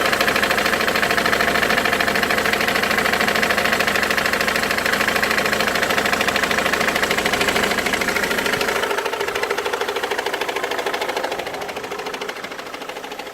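Ford Mondeo Mk3 2.0 TDCi diesel engine running with a rapid, continuous knocking noise, which the owner suspects comes from a failing crankshaft pulley. It grows quieter in the last third.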